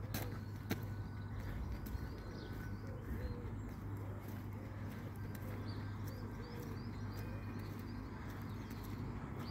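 Outdoor birdsong: small birds chirping high, with a pigeon cooing in low arched notes through the middle, over a steady low background rumble. A few sharp clicks come near the start.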